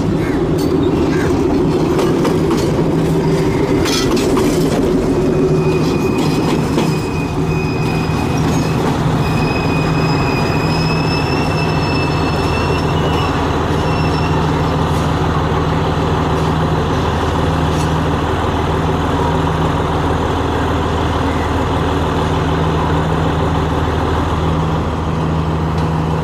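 Alstom-built Class M9 diesel-electric locomotive 866 running light, its engine droning steadily. Wheels click over rail joints near the start. A thin high wheel squeal comes in about six seconds in and fades out around fifteen seconds.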